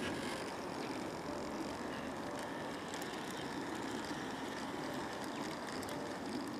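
Small model garden-railway locomotive running along the track, a steady low mechanical hum of its drive with wheel noise on the rails.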